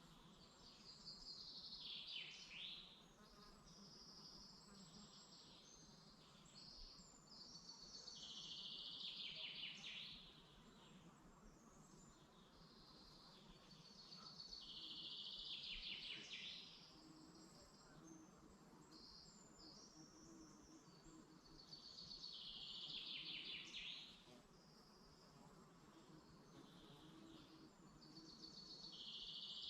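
A songbird singing faintly, repeating a trilled phrase that falls in pitch at its end, about every seven seconds and five times in all. Other birds give short high notes between the phrases.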